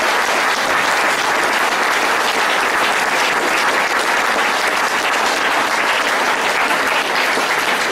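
Audience applauding steadily: dense, sustained clapping from a crowd.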